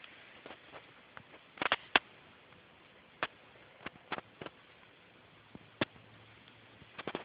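Irregular sharp clicks and taps, likely pets' claws and the toy knocking about as they tussle over a squeaky toy. The loudest cluster comes about two seconds in, scattered single taps follow, and a quick run of them comes near the end. The toy does not squeak.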